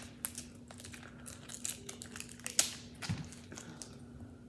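Scattered small clicks and crackles of a cooked lobster tail's shell being handled and pulled apart, with one sharper crack a little past halfway.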